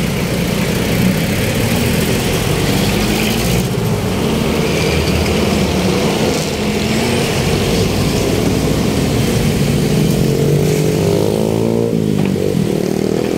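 Busy city street traffic with vehicle engines running steadily. Near the end, one engine's pitch drops and then climbs again as it revs.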